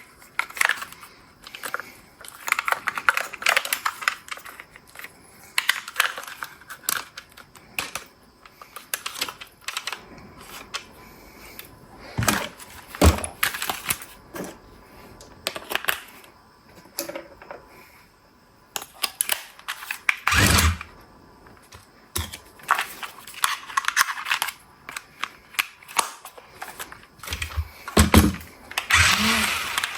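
Plastic packaging and toy parts being handled: irregular rustling, tapping and clicking. Near the end a small electric motor of an RC toy starts whirring in short spurts, rising and falling in pitch.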